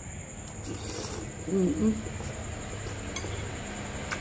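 Close-up eating sounds of a mouthful of tamarind-stir-fried balut being taken off a metal spoon and chewed, with a short hummed 'mm' of enjoyment about one and a half seconds in.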